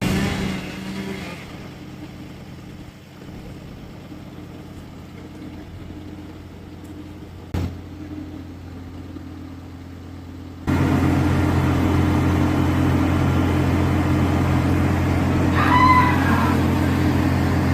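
An engine running steadily at a constant pitch. It becomes abruptly louder about two-thirds of the way in, and a brief high squeal comes near the end.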